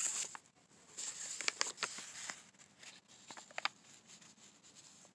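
Paper envelope rustling and crinkling as it is handled, in short irregular bursts with the loudest crinkles about a second and a half in and again past three and a half seconds.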